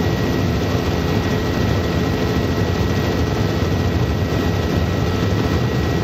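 Helicopter engine and rotor noise heard from inside the cabin in flight: a steady drone with a faint high whine over it.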